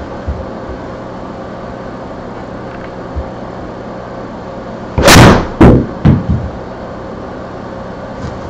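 Iron shot in a golf simulator bay: a 6-iron strikes a ball off the hitting mat with a loud crack as the ball smacks into the impact screen, followed by a few lighter knocks over the next second or so.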